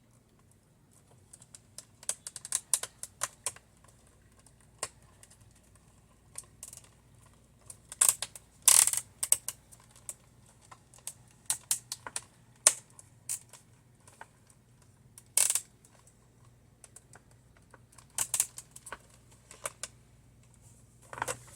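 Irregular sharp clicks, taps and a few short scrapes of a screwdriver and the plastic casing of a Dell Inspiron 8600 laptop being handled and screwed back together.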